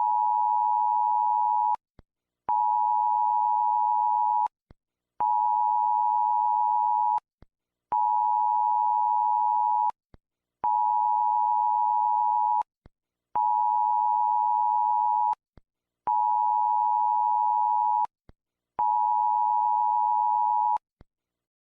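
Emergency alert tone sounding in eight long steady beeps of about two seconds each, with short gaps between them and a small click after each beep.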